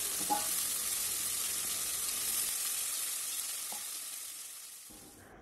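Spice-marinated singi (stinging catfish) and koi fish sizzling as they fry in hot oil in a kadai while being sautéed in their masala. A steady frying hiss that fades out over the last second or so.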